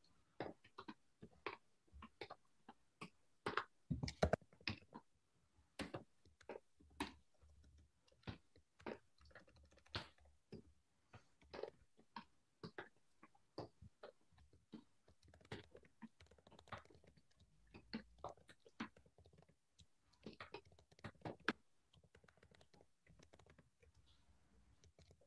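Faint typing on a computer keyboard: irregular runs of keystroke clicks, several a second, with the loudest cluster about four seconds in.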